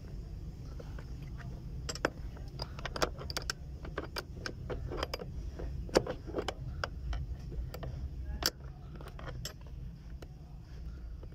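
Steel open-end spanners clicking and clinking irregularly against a hand brake cable adjuster nut and locknut as the nuts are worked loose to take up slack in the cable. A steady low rumble sits underneath.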